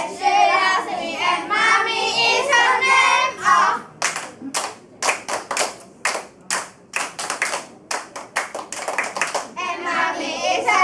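A group of children singing together, then stopping to clap their hands in a steady rhythm, about three claps a second for roughly five seconds, before the singing comes back in near the end.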